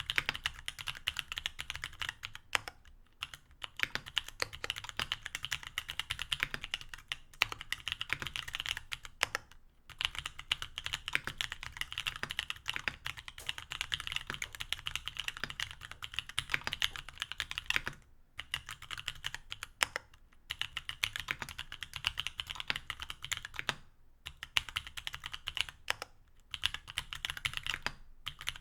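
Fast typing on a mechanical keyboard with stock C³Equalz X TKC Kiwi 67g tactile switches, aluminum plate and GMK keycaps. Rapid key strokes run in steady streams, broken by brief pauses every few seconds.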